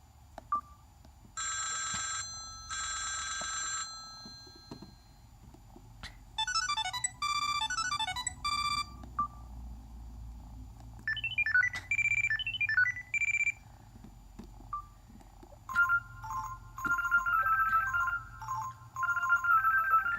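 Samsung Convoy phone's built-in ringtones played one after another through its small speaker. A bright electronic ring sounds twice, then three short electronic melodies of quick stepping notes follow, each a few seconds long with pauses between them.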